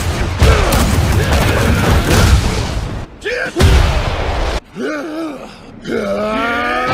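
Anime fight sound effects: a rapid flurry of punch impacts and booms with shouted grunts, a second burst of hits a little past the middle, then a pitched whine that slowly rises from about six seconds in.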